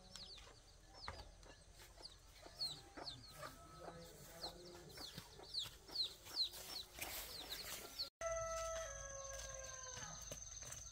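Chickens clucking, with many short high falling peeps. About eight seconds in, after a brief break, a rooster crows once: one long call that falls at the end, over a thin steady high tone.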